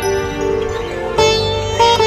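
Background instrumental music: a melody of held notes over a steady low drone, softening briefly and swelling again about a second in.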